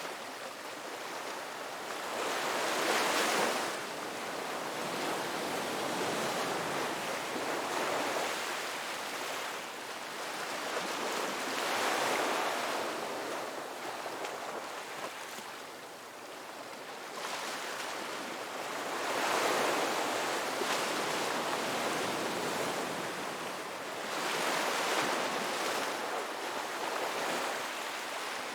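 Ocean waves breaking on a beach: a continuous wash of surf that swells and falls back every few seconds, with stronger breakers about every five to seven seconds.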